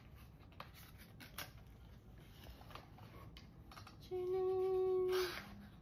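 Light clicks and rustles of a cardboard perfume box as a glass bottle is drawn out of it. About four seconds in, a voice holds one steady note for about a second.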